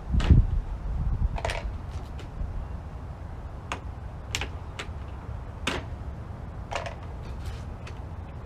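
Plastic push-pin trim clips being pried out with a plastic trim removal tool: a string of separate sharp clicks and snaps, with a low thump about a quarter second in that is the loudest sound.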